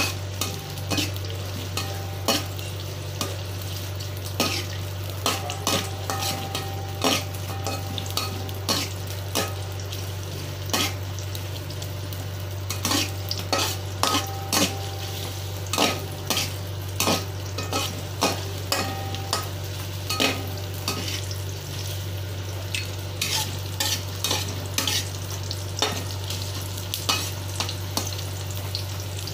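Sliced shallots sizzling as they sauté in oil in a steel wok, with a metal spatula scraping and clacking against the pan many times as they are stirred. A steady low hum runs underneath.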